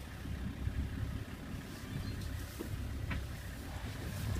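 Safari vehicle's engine idling, a low steady rumble, with a couple of faint clicks.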